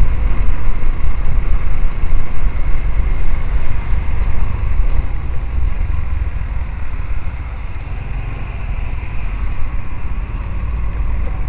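Road and wind noise from a vehicle driving in traffic: a heavy, steady low rumble that eases off after about seven seconds as it slows toward a junction.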